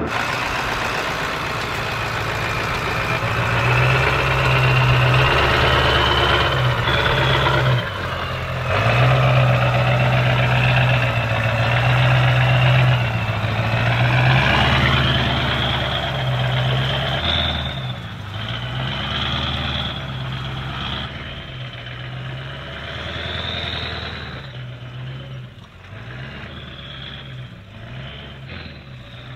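1996 Ford F-350's 7.3-litre Power Stroke turbo-diesel V8 crawling under load over rocks, its note swelling and easing again and again, with a high whistle rising and falling over it. The sound fades toward the end as the truck pulls away.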